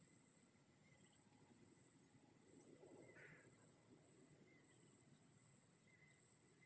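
Faint insect chirping outdoors: a high, pulsed trill repeating about every two-thirds of a second, with one brief louder sound about three seconds in.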